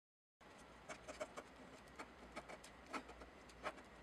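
Faint scratching of a pen on paper as a signature is written: short, quick strokes, several a second, starting suddenly about half a second in.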